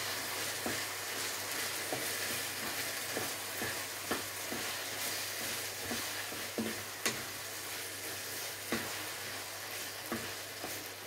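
Minced beef chilli with kidney beans sizzling in a frying pan while a wooden spatula stirs it, with irregular scrapes and knocks of the spatula against the pan over a steady hiss.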